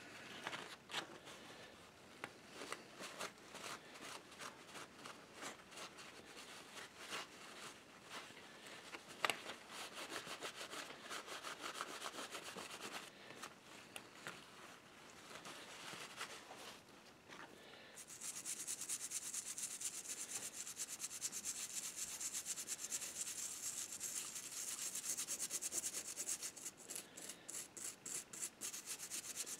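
A brass model tender truck is rubbed with a paper towel and cleaner, with small clicks as it is handled, to scrub off tarnish. About 18 seconds in, a small brush starts scrubbing it: a louder, steady, fast scratchy hiss of short strokes.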